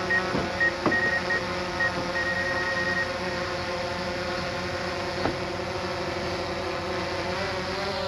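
Quadcopter drone motors running with a steady, multi-tone whine, with a few short high beeps during the first three seconds.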